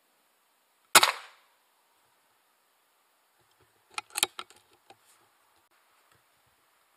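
Air rifle shot: one sharp crack about a second in that dies away quickly, followed about three seconds later by a quick cluster of small mechanical clicks.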